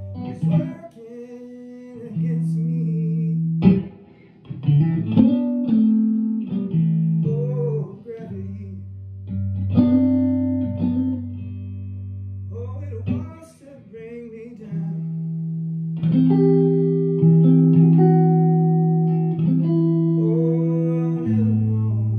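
Electric guitar played through a pair of tube amps, a 1964 Fender Vibroverb and a Longhorn Amps Tumbleweed Special: ringing chords and single-note melody lines with held, wavering notes, the sound dropping away briefly twice.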